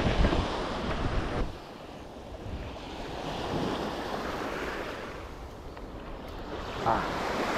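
Sea surf washing against a rock jetty, with wind buffeting the microphone; the wind rumble is heavy for the first second and a half, then drops away suddenly, leaving the softer wash of the waves.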